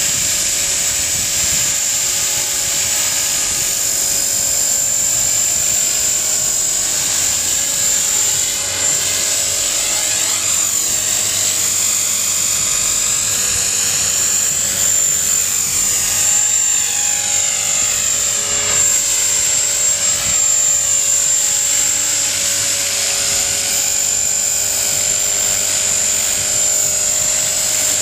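Electric 450-size RC helicopter (a HobbyKing HK-450 T-Rex clone) running steadily, its motor and gears giving a high whine over the rotor noise. The sound sweeps up and down several times as the helicopter moves low over the pavement.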